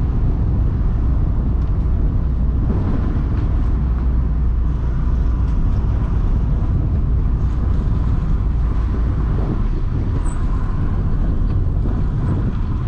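Cabin sound of a Honda City Type 2 VTEC driving downhill: a steady low engine and road rumble with tyre hiss from the wet road surface.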